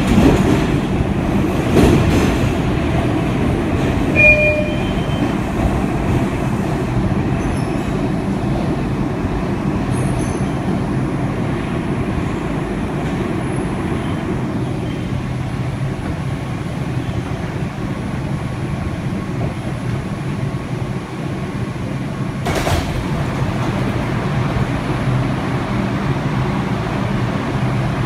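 Inside a moving R142 subway car: the steady running rumble of wheels and motors on the rails. Brief high wheel squeals come about four seconds in, and there are a couple of sharp knocks along the way.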